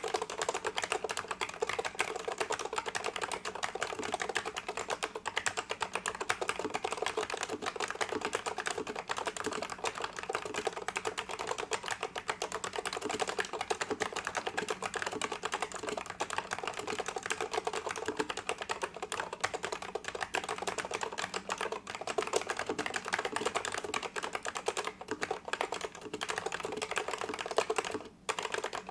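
Continuous fast typing on a vintage Unisys Keycorp POS keyboard with Alps SKCL Yellow linear switches and thick low-profile keycaps: a dense stream of key clacks, with a brief pause near the end.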